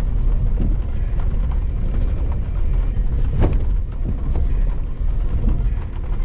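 Off-road vehicle driving over rough, rocky ground: a steady low rumble with scattered knocks and clunks, a sharper knock about three and a half seconds in.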